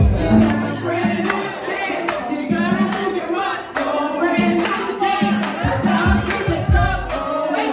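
A group of voices singing along with music.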